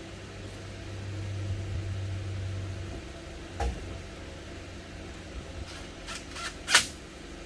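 Steady machine hum, louder for the first three seconds, with handling noises over it: a knock about three and a half seconds in, then several sharp clicks near the end, the last one the loudest.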